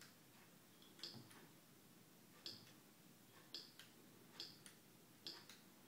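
Faint, single key clicks on a Lightwriter text-to-speech communication aid as one key at a time is pressed. There are about six presses, spaced roughly a second apart and unevenly.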